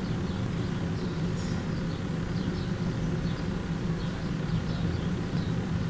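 Steady low hum of background noise, even in level throughout.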